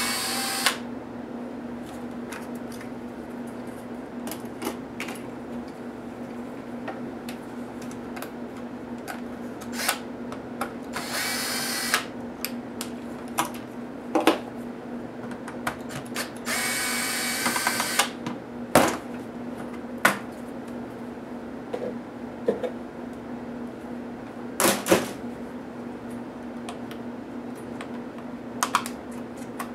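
Cordless drill-driver spinning out small laptop screws in three short runs: at the start, about eleven seconds in, and about seventeen seconds in. Between the runs come clicks and knocks of screws and plastic and metal laptop parts being handled, over a steady low hum.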